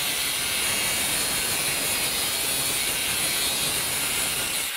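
Angle grinder cutting through a steel bar clamped in a vise: a steady grinding noise with a high whine.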